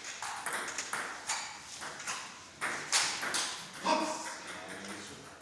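Table tennis balls clicking off paddles and table tops in a quick, uneven run of sharp clicks, the loudest about three and four seconds in.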